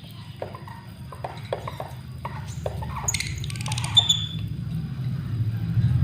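Lovebird giving a series of short squawks and chirps, the sharpest about three to four seconds in, over the low rumble of a passing vehicle that grows louder.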